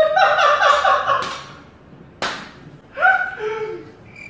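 High-pitched, squeaky laughter in rapid gasping pulses for about a second, then a short sharp swish about two seconds in and a brief pitched vocal sound near three seconds.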